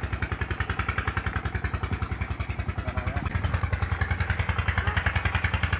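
Small engine running steadily with a fast, even putting beat, growing somewhat louder about halfway through.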